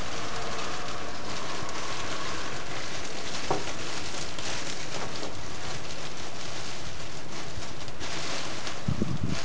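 Clear plastic sheeting rustling and crinkling as it is lifted and bunched up off a planter, over a steady background hiss. It crackles louder about four and a half seconds in and again near the end, with a soft knock about three and a half seconds in and another near the end.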